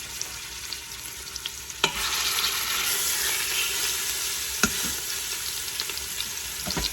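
Chunks of seasoned pork butt sizzling and crackling in hot oil in an Instant Pot's inner pot on sauté, being browned. The sizzle gets louder about two seconds in as a piece goes into the pan, with a few sharp knocks against the pot.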